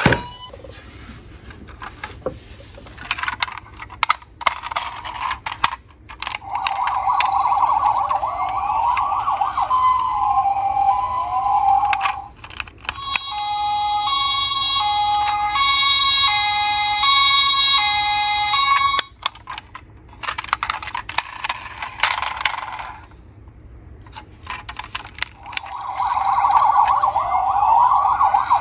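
Electronic siren sounds from battery-powered toy ambulances. A rising-and-falling wail gives way to a two-tone hi-lo siren that steps between two pitches for several seconds, and the wail returns near the end. Handling clicks fall in between.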